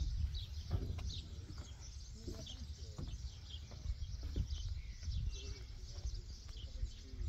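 Small birds chirping over and over in short notes, over a low rumble.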